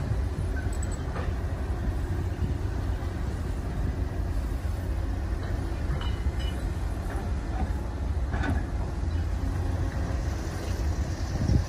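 Diesel engine of a Kobelco hydraulic excavator running steadily under load as it lifts and swings a bucket of mud, with a short knock about eight seconds in and a thump near the end.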